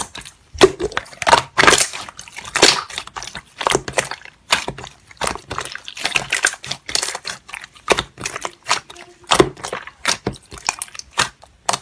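Slime being squished and poked by hand, making a quick, irregular series of sticky clicks and pops.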